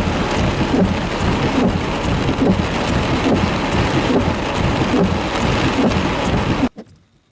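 Heavy rain pouring down in a severe thunderstorm, a loud, steady roar of rain that cuts off suddenly near the end.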